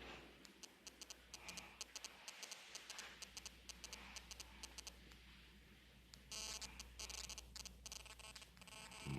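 Near silence in a small room: a steady low hum with faint irregular ticking clicks, and a short buzzy tone about six and a half seconds in. A snore begins right at the end.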